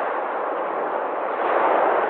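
Sea waves washing on a shore: a steady rush of surf that swells a little about one and a half seconds in.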